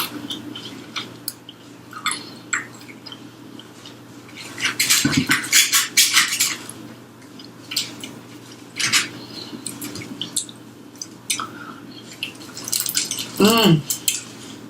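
Close-up eating of crispy fried chicken: clusters of crunchy bites and chewing with scattered small clicks and clinks, and a brief hummed vocal sound near the end.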